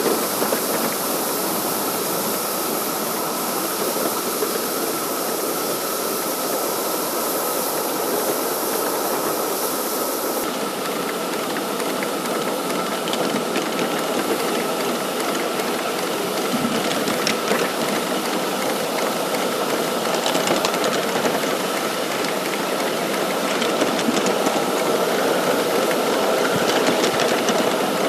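A 5-inch gauge live-steam model locomotive: a high steam hiss that cuts off sharply about ten seconds in, under a steady mechanical running with a rattle. Frequent light clicks follow in the second half.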